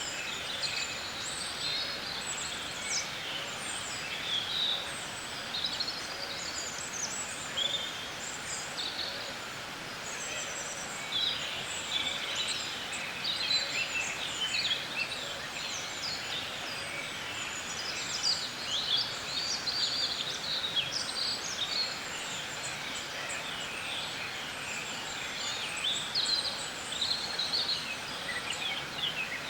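Many songbirds chirping and singing at once in dense, overlapping short calls and trills, over a steady background hiss.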